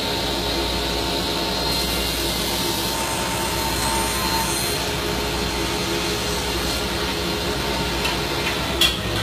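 A woodworking power tool running at steady speed, an even mechanical whine with a low hum beneath it; a single sharp knock sounds near the end.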